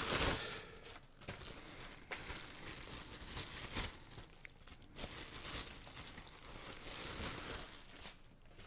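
Plastic mask bag crinkling and rustling as it is handled and opened. It is loudest in the first half-second, then comes in irregular rustles that fade near the end.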